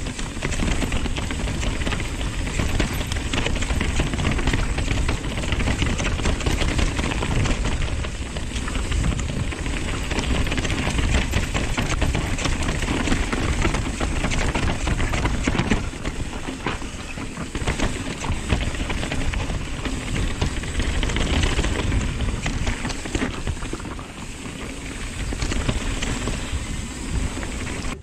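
Nukeproof Dissent 290 RS downhill mountain bike descending a dirt trail: tyres rolling over dirt, roots and fallen leaves, with the bike's parts rattling in constant small knocks over the bumps.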